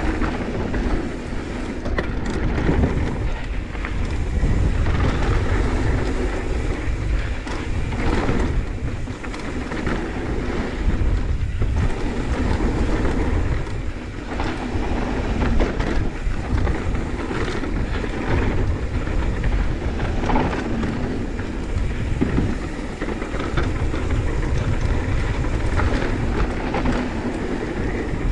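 Wind rushing over the camera microphone as a mountain bike descends a dry dirt trail, with the tyres crunching over loose dirt and stones and the bike rattling.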